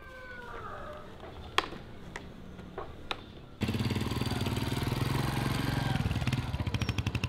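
Small motorcycle engine running as the bike rides past close by; it comes in abruptly about three and a half seconds in, with a fast, even firing rhythm. Before it, a quieter stretch with a few sharp clicks.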